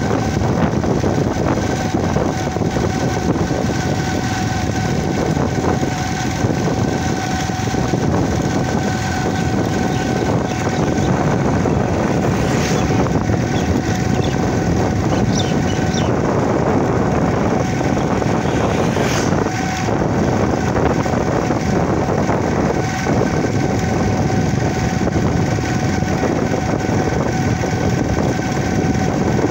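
A motor engine running steadily with a faint constant whine, mixed with rumbling wind noise on the microphone.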